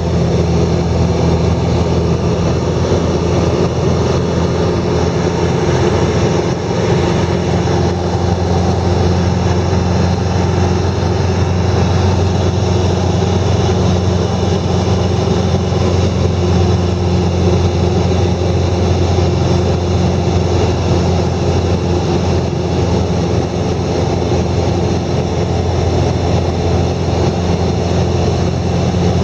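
An engine running steadily at a constant speed, with a low, even hum that does not change.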